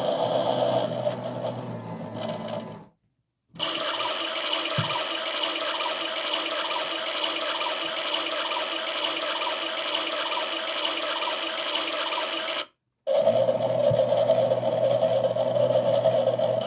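Washing machine running with a steady motor hum and whine and a faint regular pulse from the turning drum. The sound cuts out abruptly twice for a moment.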